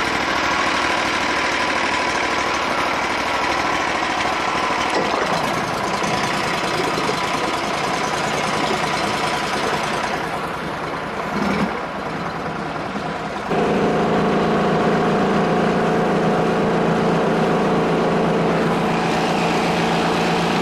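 A boat's air-cooled mud motor running under way, with rushing water from the wake. About two-thirds in, the engine sound dips for a few seconds, then comes back louder and steadier as it throttles up.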